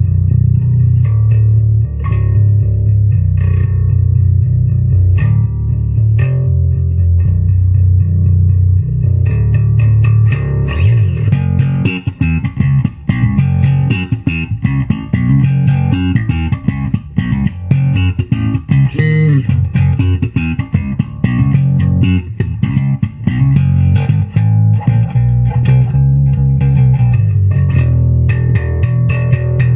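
JCraft JB-1 five-string electric bass played through an amp: held low notes at first, then from about ten seconds in a run of fast notes with sharp, clicky attacks, easing back to held notes near the end.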